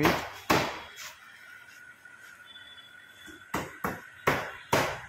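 Hammer blows from construction work: sharp, irregular knocks, two at the start, then a lull of a couple of seconds, then four more near the end.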